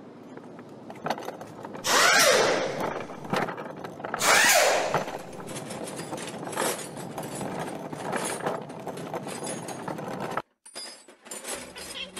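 Handheld power tool running in two loud bursts, about two and four seconds in, each winding down in pitch. A quieter rattling run follows and cuts off suddenly near the end.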